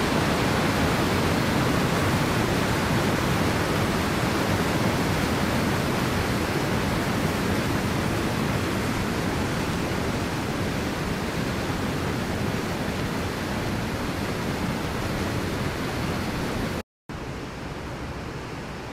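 Big Niagara Falls' white water pouring over rock ledges: a steady, even rushing. It cuts out for an instant near the end and comes back fainter.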